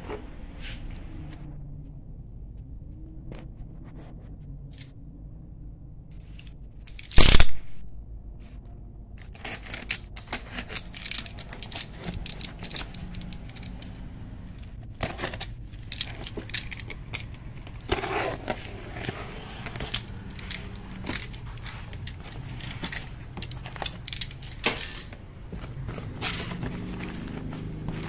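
Cardboard box being opened: a utility knife slitting the packing tape, then the flaps and contents handled with irregular scraping, crackling and rustling of plastic wrapping, over a steady low hum. One loud sudden noise about seven seconds in stands out above everything else.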